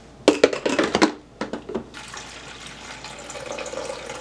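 A glass coffee carafe knocks and clinks as it is set into a Mr. Coffee drip coffee maker. From about two seconds in, water pours steadily from a plastic cup into the machine's reservoir.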